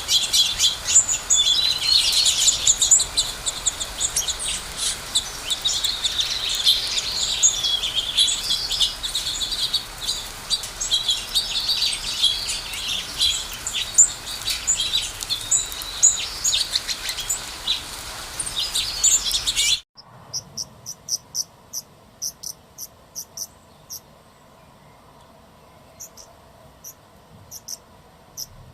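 A dense chorus of many small birds chirping and singing together. About twenty seconds in it cuts off abruptly, giving way to a quieter run of short, high chirps repeating at an even pace.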